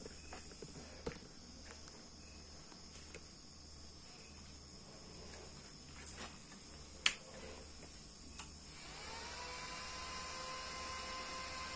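Class D power amplifier being switched on: a sharp switch click about seven seconds in, then a faint high whine that glides up briefly and holds steady, the audio generator's test tone coming through the powered amplifier, over a low pulsing hum.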